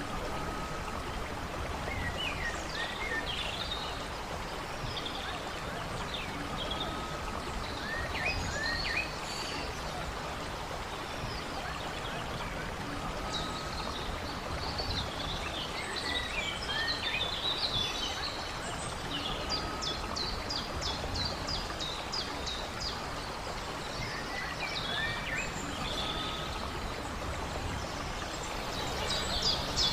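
Steady rush of a running stream under scattered wild birdsong: short chirps and whistles, with a fast trill of repeated notes about two-thirds of the way in and another starting at the very end.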